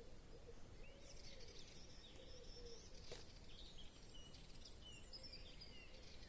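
Faint songbirds chirping over quiet outdoor background noise, with a single soft click about three seconds in.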